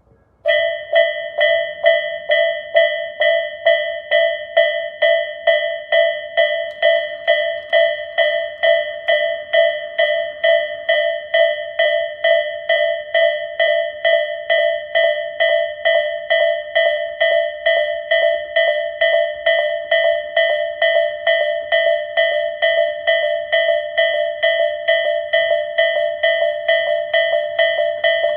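Japanese electronic level-crossing alarm of the Isesaki type, starting about half a second in and ringing steadily at about two dings a second. The recording is slightly distorted.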